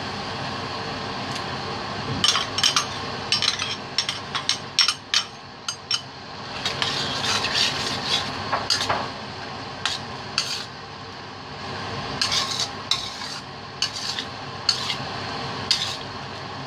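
A metal spoon stirs and scrapes through thick cream sauce in a stainless steel pan, clinking against the pan in irregular taps from about two seconds in. Underneath is the steady hiss of the simmering sauce.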